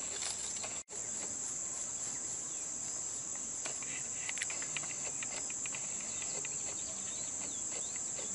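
Steady high-pitched insect chorus, cricket-like, running unbroken except for a brief dropout about a second in, with faint short chirps over it in the middle.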